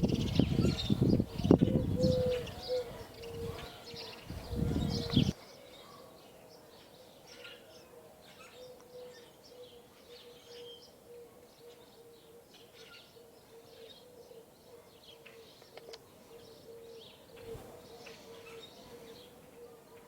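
Birds chirping outdoors in short repeated calls, over a steady faint hum. For the first five seconds loud gusty low rumbling noise, like wind on the microphone, covers them, then cuts off suddenly.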